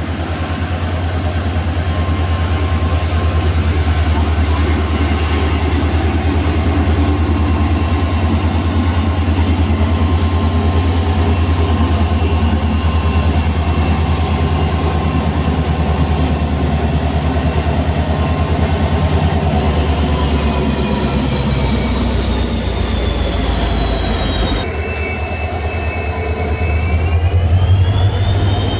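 Indian Railways WDG4D diesel-electric locomotive humming: a steady low drone from its EMD 710 diesel with several high steady whines over it. About two-thirds of the way through, the whines slide down in pitch, shift abruptly, then rise and fall again near the end.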